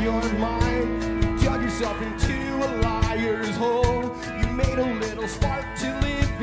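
Live rock band playing: electric guitars over a steady drum beat, with one long held note underneath.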